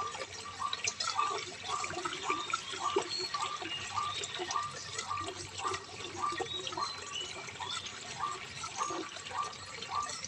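Running water trickling and splashing, with many small drips. A short note repeats steadily about twice a second over it.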